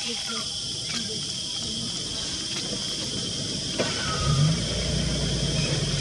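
A steady, high-pitched insect chorus of forest crickets or cicadas. About four seconds in, a vehicle engine comes in low and keeps running, growing louder.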